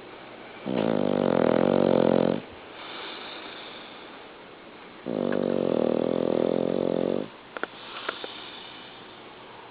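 A sleeping pet snoring: two long, buzzing snores about four seconds apart, each lasting about two seconds, with quieter breathing between them. A few small clicks follow the second snore.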